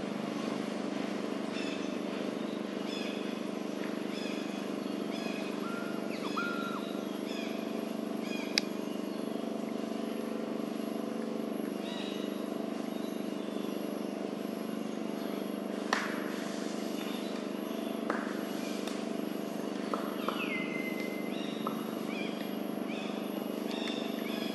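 Outdoor ambience: a steady low hum with short bird chirps repeating every second or two, and a few sharp clicks scattered through.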